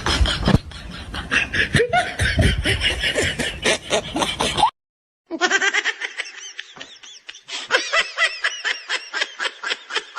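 Laughter: a person laughing in quick repeated bursts, several a second. This follows a busier stretch of sound that cuts off abruptly about halfway through, leaving a brief gap.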